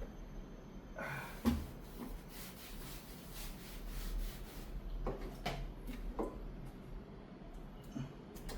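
Soft rubbing with a few light knocks and clunks as an espresso machine is handled and cleaned on the counter: one knock about a second and a half in, and a small cluster more past the middle.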